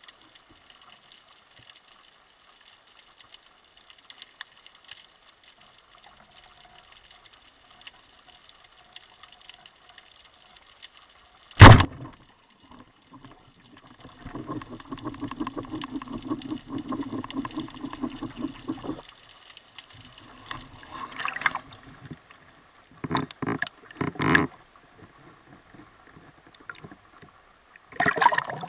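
Underwater shot of a Rayo carbon band-powered speargun: one sharp, very loud crack about a third of the way in as the bands release the shaft. It is followed by several seconds of steady low underwater rumbling, a few short knocks, and splashing near the end as the diver breaks the surface.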